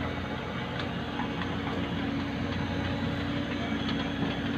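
Dump truck engine running steadily, with a low rumble, a constant hum and light scattered rattling.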